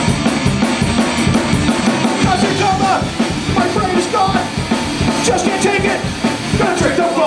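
Rock band playing live: loud, full drum kit and guitars. A fast cymbal pattern drops out after about two seconds, when a singing voice comes in over the band.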